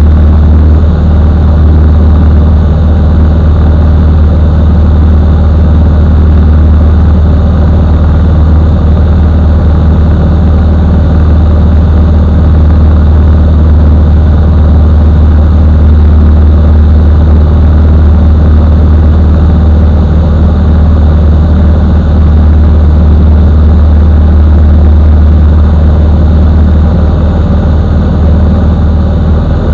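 Piston engine and propeller of a Bushby Mustang II light aircraft running steadily in flight, heard from inside the cockpit as a loud, deep, unbroken hum. It eases off slightly near the end.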